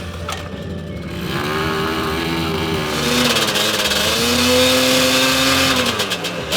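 A motorcycle engine running and revving. Its pitch rises about a second and a half in, dips briefly, climbs again and holds, then falls off near the end.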